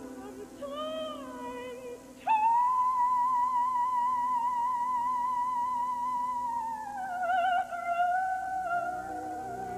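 Operatic soprano singing: a couple of short phrases, then, about two seconds in, a long high held note with wide vibrato. About seven seconds in it steps down to a lower held note.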